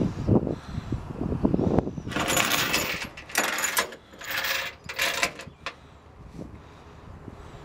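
Steel tie-down chain rattling and clinking against the aluminum flatbed deck as it is handled, in four short bursts starting about two seconds in, after a few low knocks.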